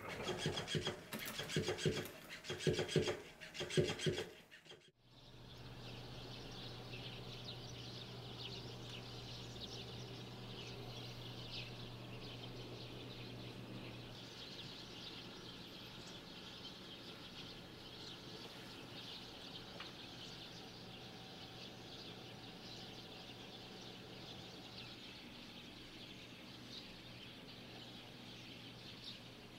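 For about the first four seconds, irregular rattling and knocking from a cat playing with a toy fish on a cat exercise wheel. Then a dense, steady chorus of many small birds chirping outdoors, with a low steady hum under it at first that fades out about halfway through.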